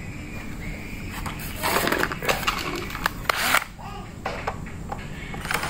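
Cordless drill-driver running in two short bursts, backing out the screws that hold the miter saw's gear housing shut, with clicks and rattles between the bursts.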